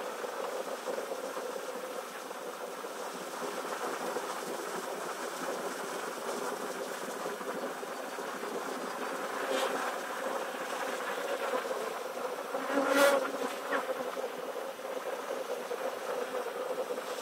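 Steady buzzing hum of a honey bee swarm as thousands of bees crawl and fly around the hive entrance. The hum swells briefly louder once, about thirteen seconds in.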